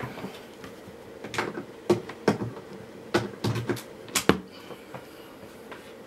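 A run of sharp clicks and knocks, about eight over three seconds, with quiet gaps between them.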